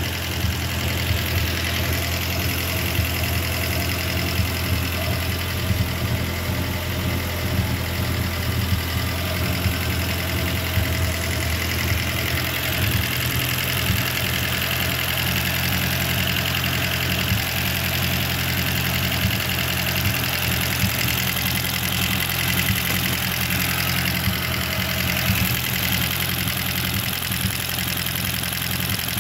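Four-cylinder car engine idling steadily, running on a homemade capacitor discharge ignition triggered by an A3144 Hall-effect sensor in the distributor.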